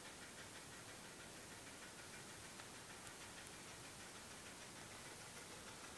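Near silence: faint steady hiss with a few faint ticks.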